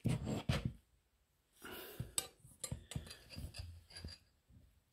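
Steel tools being handled on a bench: a steel rule and a machinist's square are moved and set against each other. There is a short scrape and several light metal knocks and clicks.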